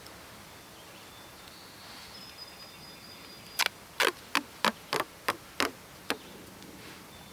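Gorilla duct tape being torn into small pieces: about eight quick, sharp rips in a run, starting about halfway in.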